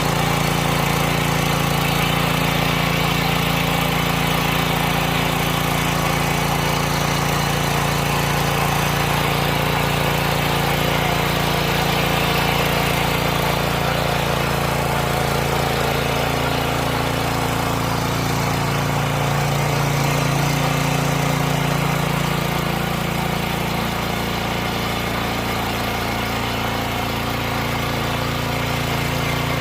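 Mini tiller's small engine running steadily while ploughing soil. Its pitch sags and it gets a little quieter about three-quarters of the way through, then picks up again near the end.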